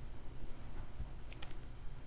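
Faint paper handling: fingertips pressing cut paper pieces onto a cardstock card, with a few light clicks about a second in.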